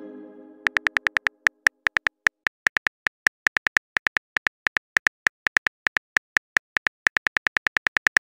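Phone on-screen keyboard clicking as a message is typed: a long run of short, sharp taps at an uneven typing pace, several a second. A fading tone dies away in the first second before the taps begin.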